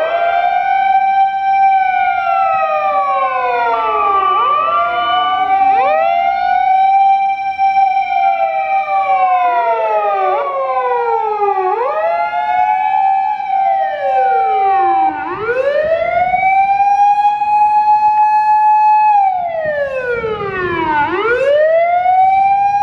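Japanese fire engine sirens wailing on an emergency run. Several sirens overlap out of step, each rising quickly to a held high pitch and then sliding slowly down. In the second half one siren stands out, dipping low twice about six seconds apart.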